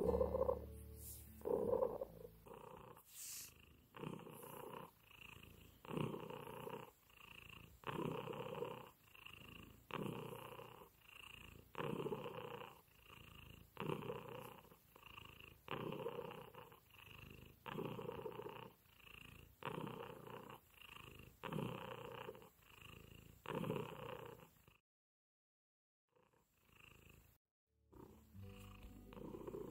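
Turkish Angora cat purring, the purr swelling and fading about once a second with its breathing. The sound cuts out completely for about three seconds near the end, then returns.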